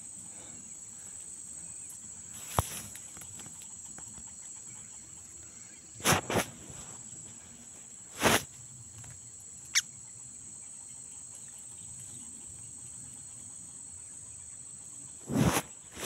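Steady high-pitched drone of insects, broken by a few short rustling bumps from moving through vegetation and handling the net, about two and a half, six, eight and fifteen seconds in, and one brief high chirp near the middle.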